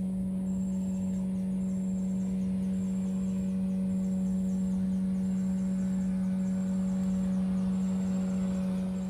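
A steady low hum: one even tone with fainter overtones above it, held without change, over a low rumble.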